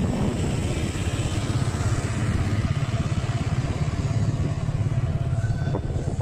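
Motorbike engine running with a steady low drone, amid street noise.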